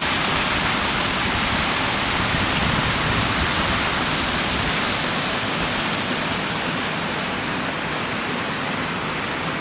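Waterfall rushing steadily into its pool: a loud, even roar of falling water with no breaks.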